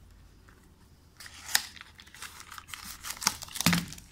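Cardboard and plastic packaging being handled: a cardboard insert lifted out of the phone box and plastic-bagged accessories picked up, rustling and crinkling in irregular scrapes. It is faint for about the first second, with sharper rustles about a second and a half in and near the end.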